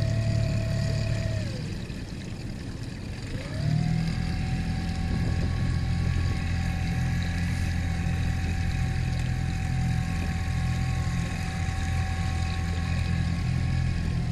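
Brand-new Mercury 15 hp Pro Kicker four-stroke outboard running in gear during break-in, pushing the boat along. Its note drops and quietens about a second and a half in, then comes back up about two seconds later and runs steadily.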